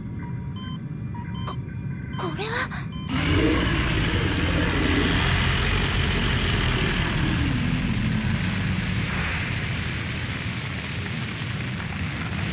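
Anime sound effects with music: short repeated electronic beeps of a computer readout over a low hum. About two seconds in comes a brief sweeping sound, then from about three seconds on a long, loud explosion rumble.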